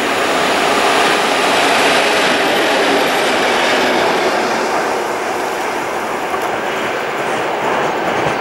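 PKP Cargo ET22 six-axle electric locomotive passing on the near track, towing a dead ST48 diesel locomotive whose engine is not running. The rolling noise of the two locomotives on the rails is loudest in the first few seconds, then fades as they move away.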